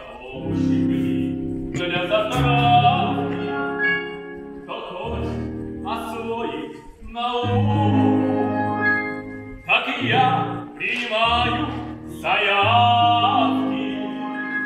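Musical theatre song: voices singing phrases with long held notes in an operatic style over an instrumental backing track.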